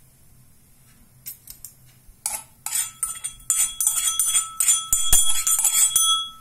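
A metal spoon scraping and tapping against a metal vessel, a quick run of clinks with a ringing tone, starting about two seconds in and stopping shortly before the end, as the crushed spice mix is scraped into the pan.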